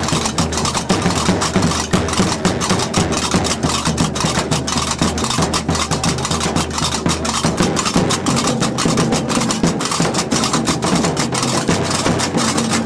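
Gnawa ritual music: qraqeb (iron double castanets) clacking in a rapid, steady rhythm over a large double-headed tbel drum being beaten.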